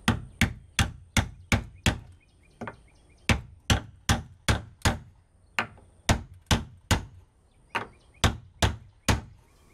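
Hammer striking a wooden tapping block held against an overhead tongue-and-groove thermally modified wood soffit board, tapping the board to seat its joint. About twenty sharp knocks, two to three a second, in short runs of three to six with brief pauses.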